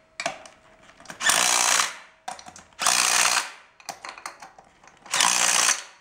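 Cordless impact wrench ("zip gun") with a 17 mm socket running nuts down onto a walk-behind tractor's wheel hub in three short bursts, tightening the axle extension in place. Small clicks and knocks fall between the bursts.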